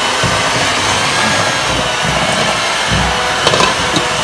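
A steady whirring noise, like a small motor or fan, runs throughout. A few light clinks of metal pot lids being lifted come near the end.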